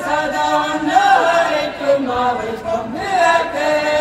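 A large group of voices sings a chant-like Seto folk song together, in held, sliding lines.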